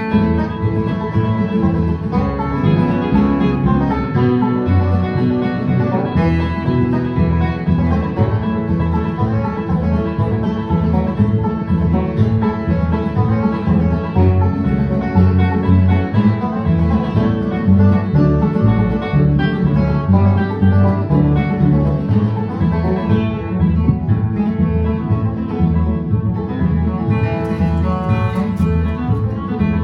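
Bluegrass-style instrumental music with banjo and guitar picking over a steady beat.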